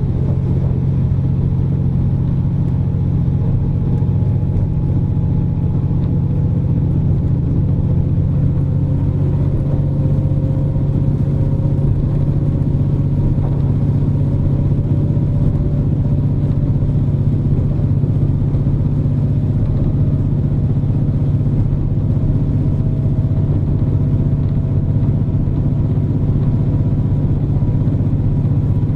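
KiHa 47 diesel railcar running along the line, a steady deep engine and running rumble with one tone in it rising slowly in pitch.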